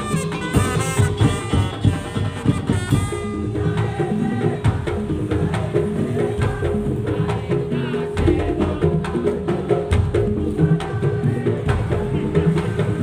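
Madurese tong-tong (daul) ensemble playing, with wooden slit drums and drums beating a busy rhythm under a held tone. A high melodic line sounds over it for the first three seconds or so, then stops, leaving the percussion.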